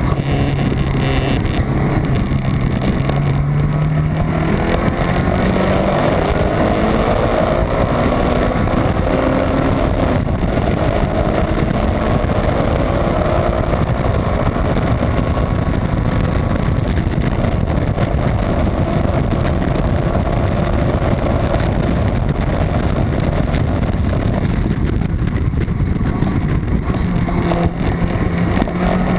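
Honda Civic EG race car's B18 non-VTEC four-cylinder engine running hard under racing load, its pitch climbing over the first several seconds as it accelerates, then a steady high-rev drone with heavy road and wind noise, easing briefly near the end before climbing again.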